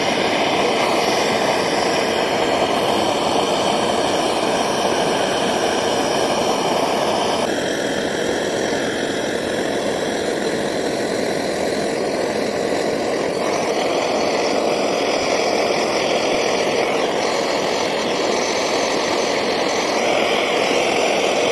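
Gas blowtorch flame running with a steady hissing rush, heating a crucible to melt silver. The tone shifts slightly about seven and a half seconds in, and again around thirteen and twenty seconds.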